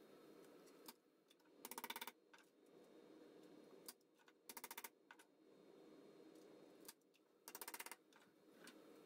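Chicken wire mesh rattling in three short bursts of rapid metallic clicking, each about half a second long and about three seconds apart, as it is tugged and shifted over the frame. Between the bursts there is only faint room noise.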